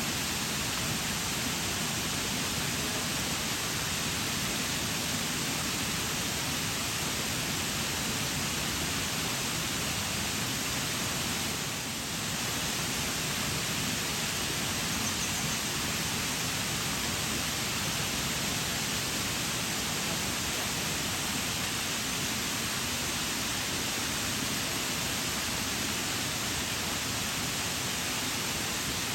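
Steady rushing of water falling over the Shiraito waterfall, an even, unbroken hiss with a brief slight dip about twelve seconds in.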